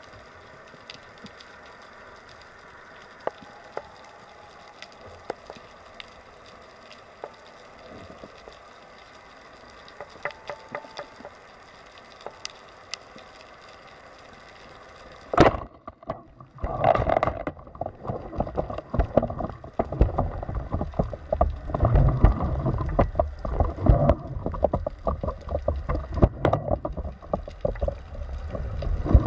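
Quiet underwater ambience with scattered faint clicks. About halfway through, a speargun fires with one sharp crack, and loud, irregular churning water noise follows for the rest of the time.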